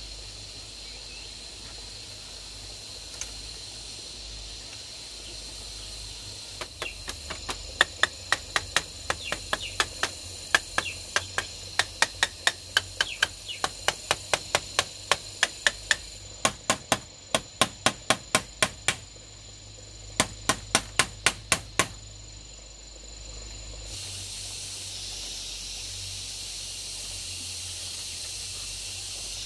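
Repeated sharp strikes of a hand tool on bamboo, about two to three a second, in three runs from about seven seconds in to about twenty-two seconds in. Under them, insects chirr steadily with a high whine.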